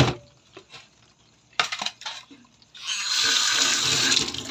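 A sharp knock, then a brief clatter about a second and a half in. Then a loud rush of running water over the last couple of seconds.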